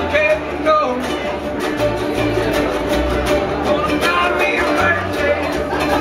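Ensemble of ukuleles strummed together in rhythm, with a voice singing over them and low bass notes underneath.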